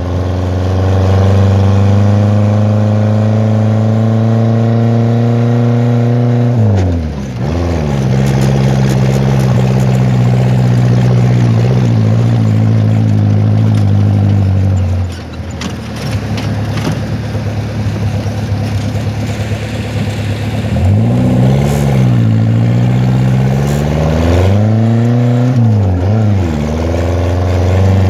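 Sand buggy's Renault 12 four-cylinder engine running under load over loose sand. It is held at steady revs, with a quick dip and pick-up about seven seconds in, and eases off around fifteen seconds. A few knocks follow, then it revs up and down several times in the last third as it climbs a dune.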